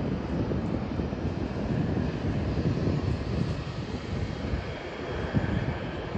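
Engines of a distant twin-engine jet airliner running on the runway: a steady, uneven rumble with a faint hiss above it.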